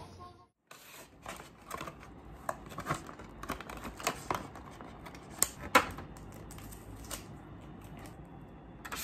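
Clear plastic clamshell food container being handled and pried open: a run of irregular crackles and sharp clicks, starting about half a second in and loudest about two-thirds of the way through.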